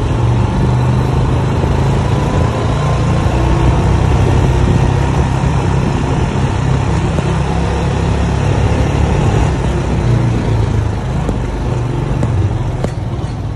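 A four-wheeler ATV's engine running steadily while the ATV is under way, heard close up along with road noise.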